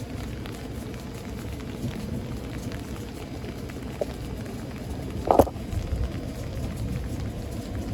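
Steady thunderstorm ambience of rain and wind noise with a low rumble underneath, broken by a brief sharp knock about five seconds in.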